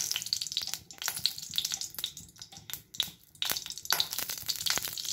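Ghee sizzling and crackling in a hot metal kadai, a quick run of small pops and clicks. The crackle thins briefly around the middle and picks up again as more ghee is spooned into the pan.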